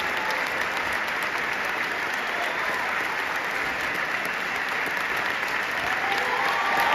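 Large theatre audience applauding steadily, with whoops and cheers starting to rise near the end.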